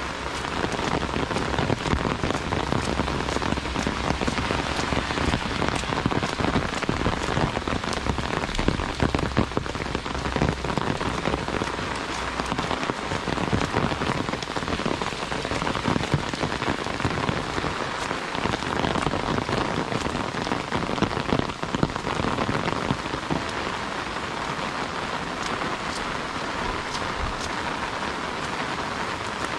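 Heavy rain falling steadily on the road and plants, a dense hiss shot through with sharp drop impacts close by on an umbrella overhead. It eases a little after about twenty seconds.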